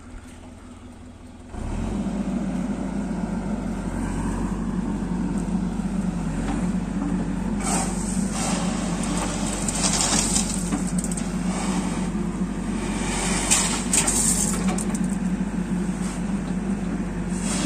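Diesel engine of heavy machinery running steadily, coming in abruptly louder after about a second and a half, with several rushing, rattling bursts of noise over it through the middle and later part.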